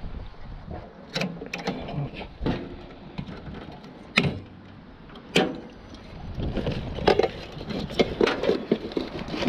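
Hand tools and metal parts of a scrapped appliance being worked apart: irregular metallic clicks, knocks and clatter, with several sharp knocks spread through.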